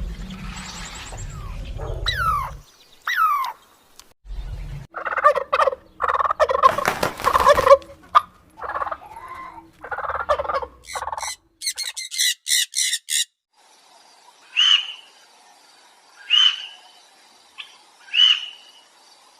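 Domestic fowl and other birds calling, a series of separate calls: a few falling cries, then a long rapid rattling call in the middle, a run of high chirps, and three short calls spaced about a second and a half apart near the end.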